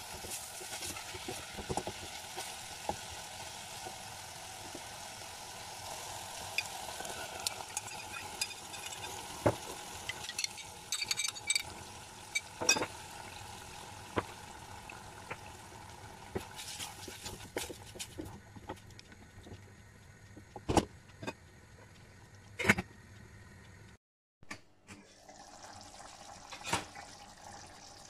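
Spicy sausage meat frying in a stainless steel pot, sizzling steadily, with clicks and knocks from a wooden spatula stirring it. About two-thirds of the way in, the sizzle dies down to scattered pops and a few sharp knocks as the tomato sauce goes in and starts to bubble.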